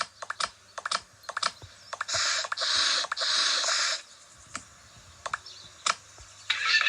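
Scattered light clicks and taps from handling a small plastic toy, with a two-second stretch of dense rustling about two seconds in.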